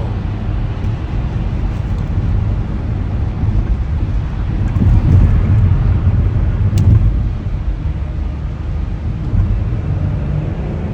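Steady road and engine noise inside a moving car's cabin on a snowy highway. It grows a little louder in the middle, with one sharp click about seven seconds in.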